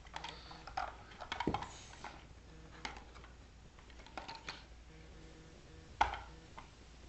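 Hard toy pieces being handled and knocked together: scattered clicks and taps, a quick clatter about a second and a half in, and one louder knock near the end.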